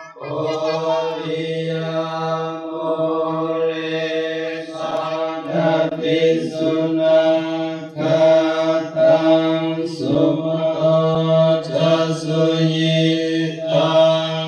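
Theravada Buddhist chanting: a group of voices chants together on one steady low pitch, the syllables pulsing in a continuous drone with short pauses between phrases.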